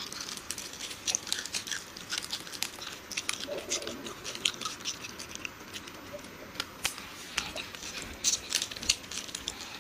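Close-miked chewing and crunching of chocolate snacks: a dense run of small crackling, clicking mouth sounds, with a little wrapper crinkling.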